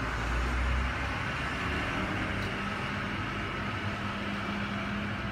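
Truck engine running outside, with a low boom in the first second and a steady hum setting in about two seconds in.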